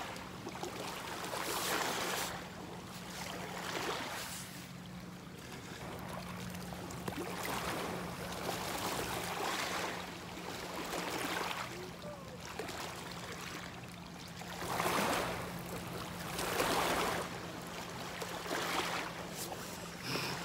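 Water washing and splashing in swells every couple of seconds, over a steady low hum.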